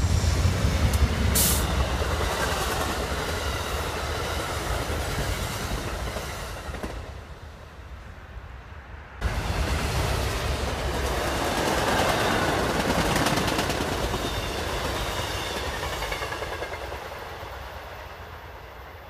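An Amtrak passenger train rushing past at speed, its low rumble and wheel noise fading as it goes. After a sudden cut about nine seconds in, a second passenger train passes at speed, building to a peak and then fading away.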